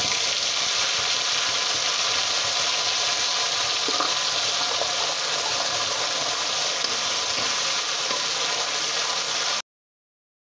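Ground onion-tomato paste sizzling steadily in hot oil in a kadhai as it is poured in and stirred with a steel ladle. The sizzle cuts off suddenly near the end.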